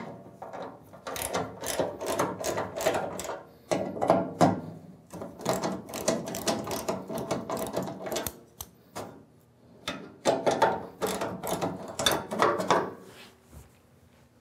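Hand ratchet wrench clicking in quick runs as it loosens the skid-shoe bolts on a snow blower's auger housing. Three long bouts of ratcheting with short pauses between them, stopping about a second before the end.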